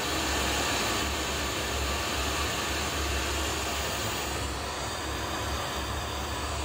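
Steady rushing static hiss from a Panasonic AV receiver's radio tuner playing through a small test speaker, with no station tuned in. The highest part of the hiss thins out about two-thirds of the way through.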